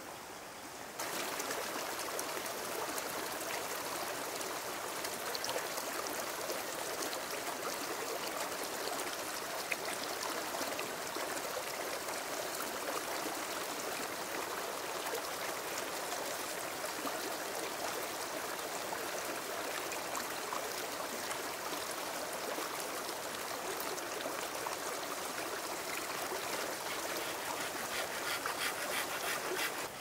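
Running water flowing steadily, starting abruptly about a second in.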